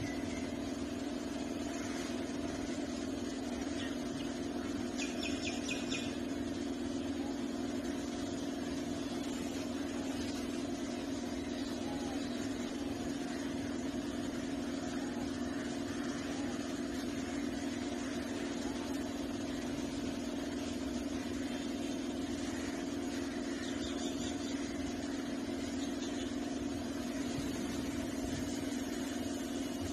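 A steady low hum that does not change, with a few short high chirps about five seconds in and again near twenty-four seconds.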